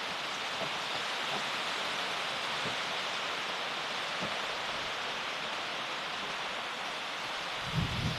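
A steady, even rushing hiss, with a few faint knocks scattered through it.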